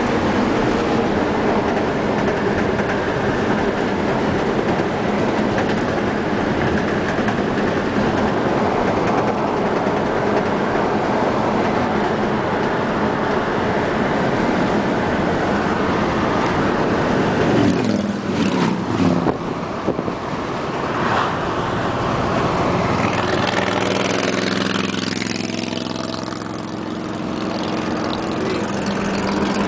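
Steady road, tyre and engine noise heard from inside a moving vehicle's cabin. There is a cluster of knocks about two-thirds of the way through. Near the end the engine note falls and the noise eases briefly, then builds back up.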